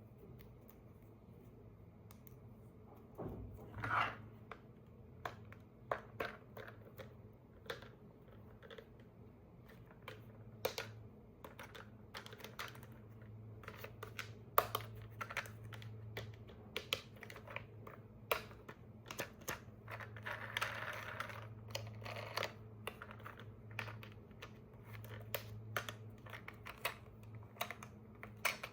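Scattered light clicks and taps of small plastic parts being handled, with a brief rustle about two-thirds of the way through, over a low steady hum.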